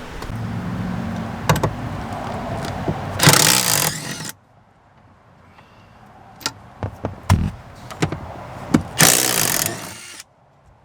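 An impact gun with a T50 bit on a long extension rattling in two bursts of about a second each, near the middle and near the end, backing out seat-mounting bolts, with a few knocks and clicks of handling between.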